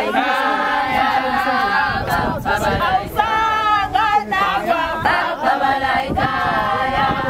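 A group of women singing together unaccompanied, a Zulu celebration song with many voices.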